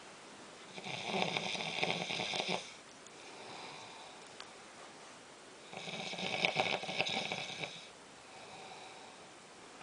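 A sleeper snoring: two long snores about five seconds apart, each lasting about two seconds, with quieter breaths in between.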